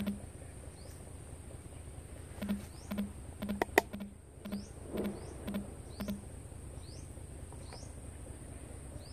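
Outdoor ambience with a steady high-pitched insect drone and short rising chirps about once a second. In the middle a quick run of about nine sharp clicks or taps, each with a dull knock, the loudest near four seconds in.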